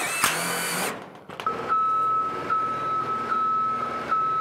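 A cordless impact driver sinks a screw through the steel ceiling panel, a brief loud whir with a rising whine. Then, about a second and a half in, a scissor lift starts moving: its motor runs under a steady high motion-alarm tone that pulses slightly about once a second.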